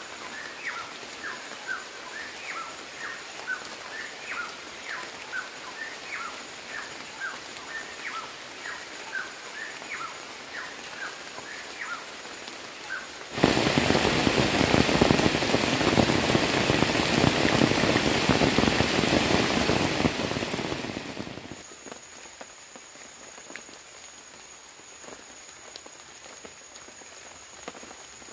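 Repeated short chirping calls, about two or three a second, over light rain; about halfway through, heavy rain with water streaming off a tarp edge comes in suddenly and runs loud for about eight seconds. It then fades to light rain with a steady high-pitched insect whine.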